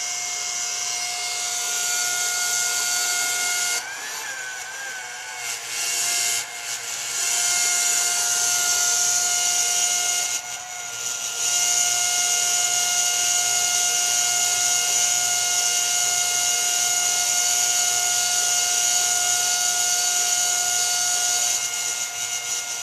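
Small electric transfer pump (Wayne PC2, 115-volt) running with a steady high-pitched motor whine. The pitch sags and wavers briefly about four seconds in, and the sound drops in level a couple of times before steadying.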